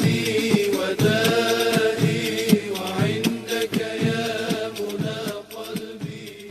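Devotional nasheed singing: layered voices chanting a melody over a steady beat, fading out near the end.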